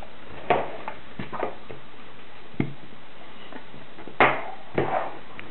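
Handling noise from a rubber vacuum hose and its gauge being moved and fitted on a tabletop: a few scattered knocks and clicks, the loudest a little after four seconds in.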